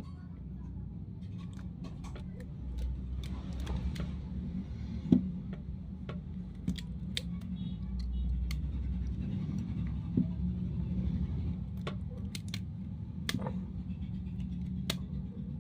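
Scattered sharp clicks and light taps of small tools and phone parts being handled during a smartphone teardown, over a steady low hum.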